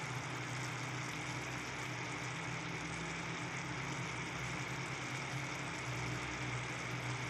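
A steady low motor hum with an even hiss over it, while chicken and bitter melon simmer in a wok.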